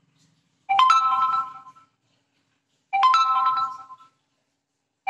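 Smartphone notification chime sounding twice, about two seconds apart, with a third just starting at the end; each is a bright cluster of ringing tones that starts sharply and fades over about a second. The chimes are the phone's alerts for camera file downloads completing.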